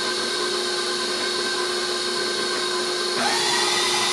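Electric mixer running steadily with a motor hum and whine, mixing ground beef meatloaf mixture; it gets a little louder, with a change in tone, about three seconds in.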